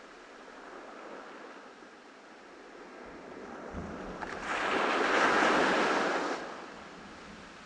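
Ocean waves breaking on a beach: a soft wash, then a wave builds and breaks about four and a half seconds in, loudest for under two seconds before falling away.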